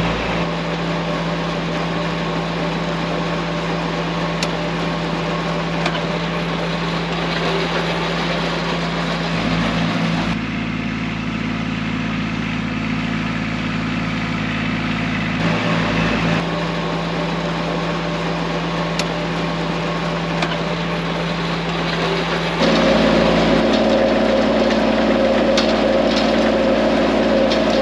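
Kubota tractor's diesel engine running steadily as it pulls a hay rake through the field. The engine note shifts a couple of times and grows louder near the end.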